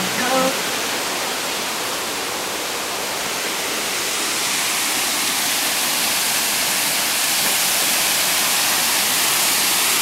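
Waterfall pouring over rocks: a steady rush of falling water, growing slightly louder and brighter from about four seconds in.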